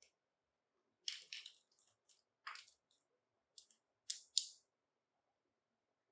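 Small plastic toy pieces being handled: a few short, crisp clicks and scrapes in clusters, the last ones the loudest.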